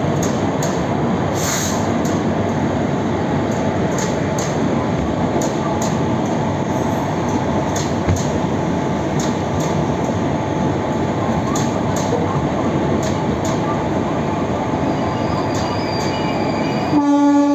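An Indian Railways express train moving through a station: a steady rumble of coaches with regular clicks of wheels over rail joints. A train horn comes in with one held tone near the very end.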